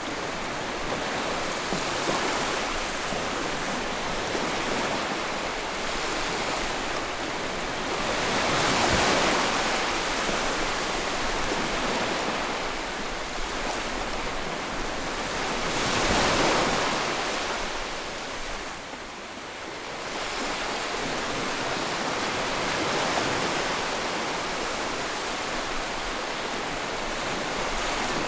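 Ocean waves breaking and washing on the shore: continuous surf with swells about nine seconds in and again at sixteen seconds, easing off near nineteen seconds before building again.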